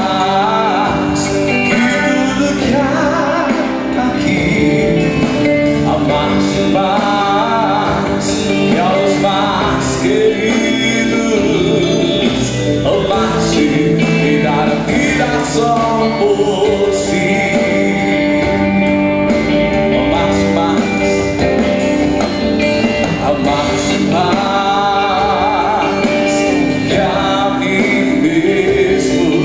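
Live Christian worship song: a man sings the lead into a microphone, with women's backing vocals and instrumental accompaniment.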